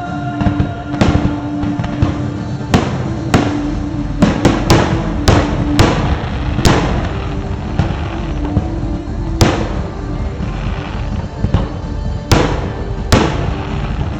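Aerial fireworks shells bursting, a dozen or so sharp bangs at irregular intervals with several in quick succession, over crackling from the show and a musical soundtrack with sustained notes.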